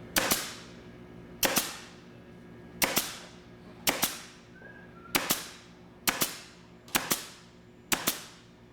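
Upholstery staple gun driving staples into trim: eight sharp cracks about a second apart, many with a quick second click right after.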